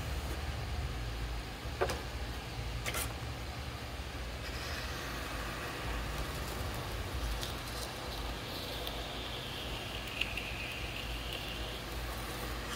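Electric potter's wheel running with a steady low motor hum while clay is thrown. Two sharp clicks come about two and three seconds in, and in the second half a faint high squeak-like tone rises over it and fades out near the end.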